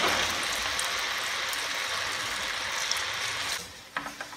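Battered green banana pieces deep-frying in hot oil in a kadai: a steady hiss of sizzling oil. It drops quieter near the end, where a few light clicks come from a wire skimmer in the pan.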